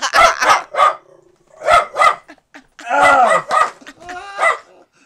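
A dog barking in a rapid series of short barks, in several clusters.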